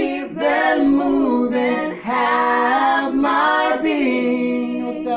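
A small group of voices, women, a man and a child, singing a gospel worship song together without accompaniment, in long held notes.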